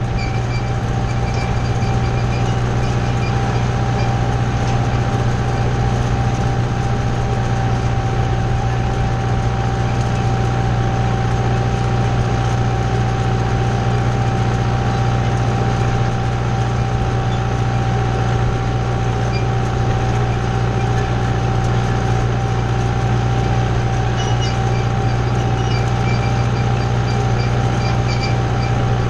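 Kubota tractor's diesel engine running steadily under load while pulling a wheel hay rake: an even, unbroken drone with a thin steady whine held above it.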